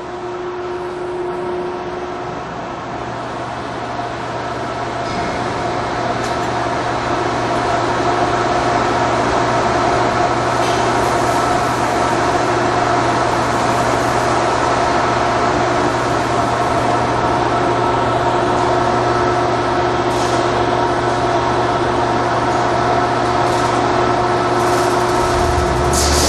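Electric motor and gear reducer driving a Readco twin-shaft jacketed continuous mixer, running with a steady hum and several held tones. It grows louder over the first several seconds, then holds steady, with a low rumble joining near the end.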